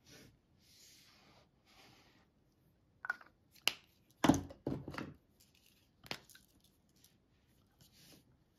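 A paper sheet and cutting mat sliding softly on a tabletop, then a cluster of sharp clicks and knocks in the middle as craft supplies are handled and a brush pen is picked up.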